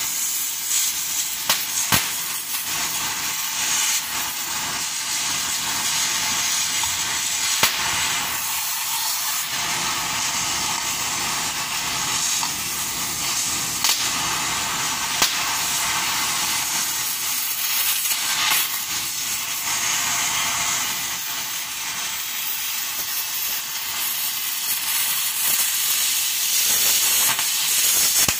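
Oxy-fuel cutting torch hissing steadily as it cuts the steel teeth off a wheel loader bucket, with a few sharp pops and crackles from the molten metal.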